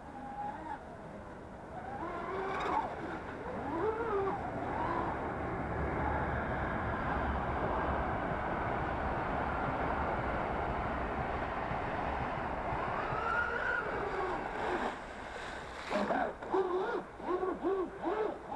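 Radio-controlled speed boat running at speed on a lake: a steady rush of motor and spray, its pitch swinging up and down several times near the end.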